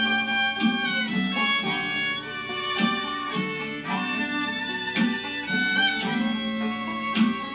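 Live band playing an instrumental passage between sung verses: held melody notes over struck chords, with no singing.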